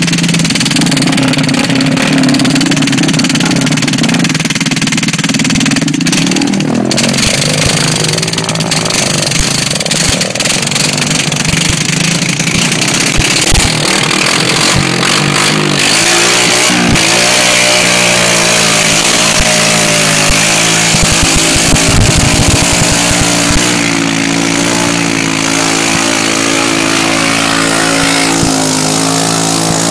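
Honda ATC three-wheeler engine running hard, ridden through mud and deep water. The engine note rises and falls for the first half, then settles into a steady drone from about halfway, over a constant loud rushing hiss.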